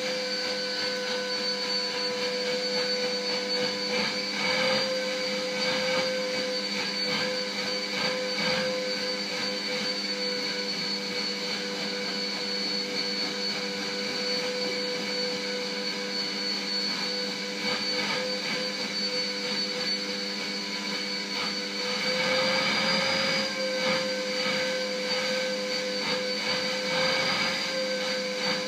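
Vacuum cleaner running steadily with a constant whine, its hose nozzle being passed over a Shiba Inu's coat. The whine rises a little and gets louder about three-quarters of the way through.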